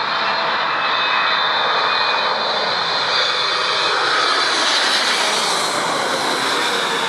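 Jet engines of a heavy airliner on landing approach: a loud, steady rush with a high whine. It swells to its loudest about halfway, and a tone falls in pitch near the end as the aircraft passes.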